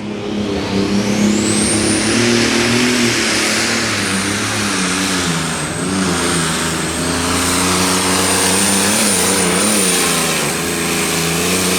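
Super Stock pulling tractor's turbocharged diesel engine running flat out on a pull, loud and steady, with a high turbo whine that climbs over the first two seconds and then holds.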